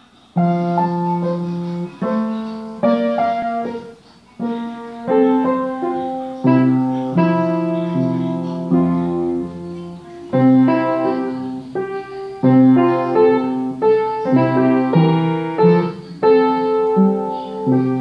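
Background piano music: chords and melody notes struck and left to fade, with a new chord every second or two.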